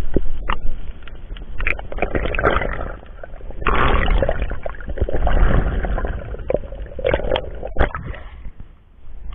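Underwater swishing and bubbling water picked up by a submerged camera, in uneven surges with scattered sharp knocks against the housing.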